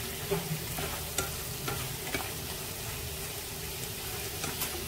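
Fried tofu cubes sizzling in hot oil with fried lemongrass and soy sauce while chopsticks toss them, with a few light taps of the chopsticks against the pan.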